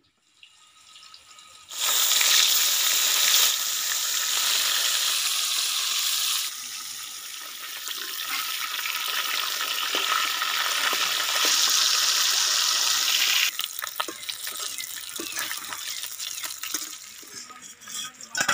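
Pieces of snakehead (shol) fish sizzling loudly as they fry in hot oil in an aluminium kadai. The sizzle starts suddenly about two seconds in, after a quiet moment while the oil heats, and drops in level a few times. Light clicks of a metal spatula come near the end.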